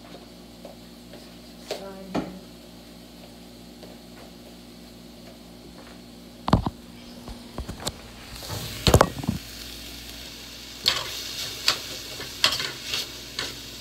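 Chopped onions sizzling in a hot stainless steel pan, stirred and scraped with a spatula in repeated strokes. The sizzle starts about halfway through, after a couple of heavy thumps.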